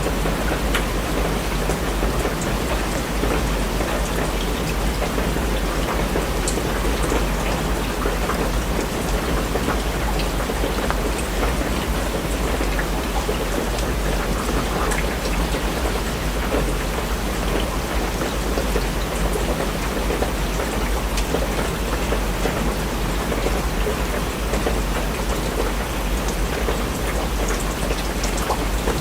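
Steady rain falling, an even hiss with scattered individual drop taps over a constant deep rumble.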